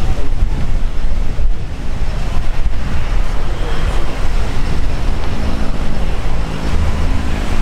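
Strong wind buffeting the camera microphone: a loud, gusty low rumble that rises and falls unevenly.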